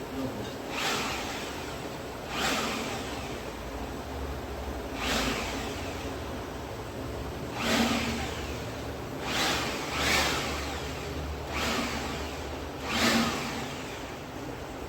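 Homemade LPG-fired turbo jet engine rig running, with its electric blower giving a steady hum. About eight short rushing bursts, some louder than others, come every one to three seconds.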